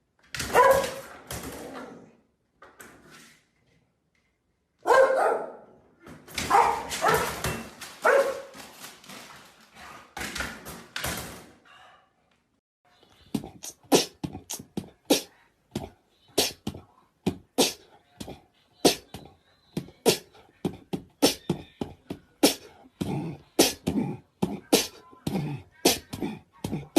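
A dog vocalising in several bouts of barks and whines. Then comes a long run of sharp taps or knocks, about two a second.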